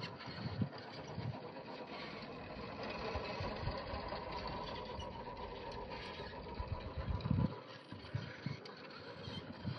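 Electric motor and geared drivetrain of a scale RC rock crawler built on an RC4WD Trail Finder 2 chassis, whining steadily as it crawls slowly up rock. A few low thumps come near the start and again about seven seconds in.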